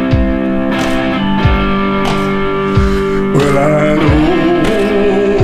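Old Fender Telecaster in open G tuning played through distorted old speakers: sustained, ringing chords over a steady beat of low drum hits about every two-thirds of a second. A wavering melody line comes in about three and a half seconds in.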